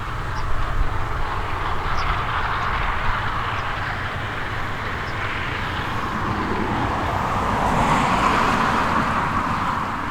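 Heavy farm machinery running in a maize field: a steady mechanical drone over a low rumble. It swells to its loudest about eight seconds in, then eases.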